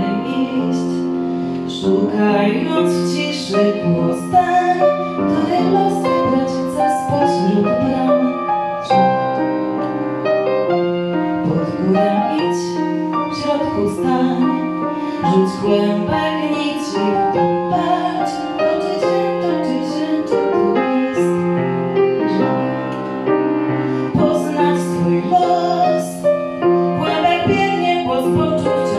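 A woman singing with grand piano accompaniment.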